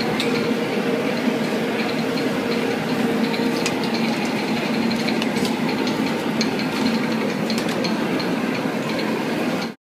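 Steady background noise of a busy taco stand: a constant low mechanical hum under general clatter, with scattered light clicks of knife and utensils. It cuts off suddenly near the end.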